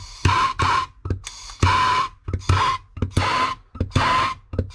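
Handheld gas torch flame switched on and off in short hissing bursts with a whistling tone, six or seven pulses, as it heats and shrinks the plastic sleeves of crimped wire connectors.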